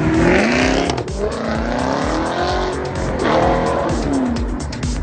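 2013 Shelby GT500's supercharged V8 accelerating hard through a custom "Tunnel Ram" muffler exhaust. Its pitch climbs twice as it pulls through the gears, then falls near the end as it goes away. Background music with a steady beat runs underneath.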